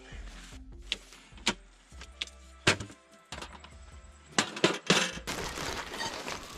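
Background music with a string of sharp knocks and clatter as a folding camp table and a portable stove case are handled and set down, then a steady rustling near the end.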